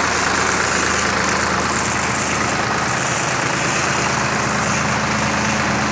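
Sonalika tractor's diesel engine running steadily, driving a tractor-mounted Usha 30B sprayer pump, with a steady hiss from the spray jet over the engine.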